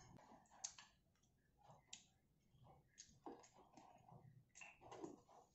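Faint, scattered clicks and light taps from someone eating at a table: chewing, and handling food and dishes.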